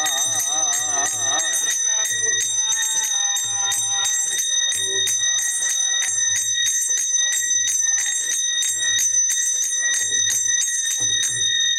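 Devotional singing led by a man's voice, clearest in the first two seconds, over brass hand cymbals (kartals) struck at about four strokes a second. The cymbals keep up a steady high ringing, and a low beat falls about once a second.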